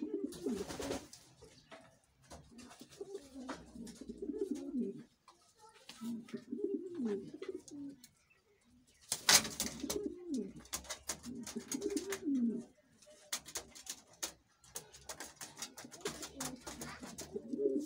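Domestic pigeons cooing: about six low, rolling bouts of coos, each a second or two long with short gaps between, over scattered light clicks and taps, one sharper tap about nine seconds in.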